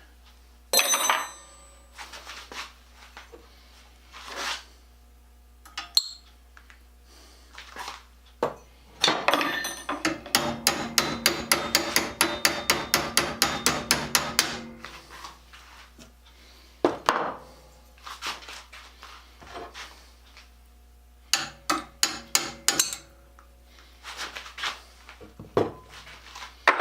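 Metal tools working a steel bolt out of a hot riveted plate. Scattered metallic clinks and knocks are heard, with a rapid, even run of clicks, about seven a second, in the middle lasting about five seconds.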